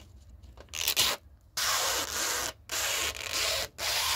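Protective plastic film being peeled off the stainless steel lid of a mini grill sandwich maker. It comes away in a short pull about a second in, then three longer pulls of about a second each, with brief pauses between them.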